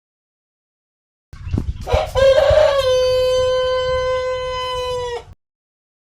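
Rooster crowing once, starting about a second in: a rough, rising opening that settles into a long, steady held note lasting about two and a half seconds, then breaks off abruptly.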